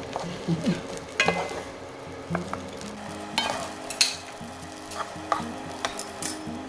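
Wooden spatula stirring and tossing fried rice in a hot frying pan, with a light sizzle and sharp knocks of the spatula against the pan about once a second.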